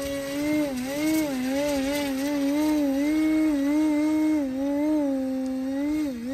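Electric motor and propeller of an E-flite Cessna 150 RC model plane in flight, a steady whine whose pitch rises and falls with throttle and passes, dipping briefly near the end.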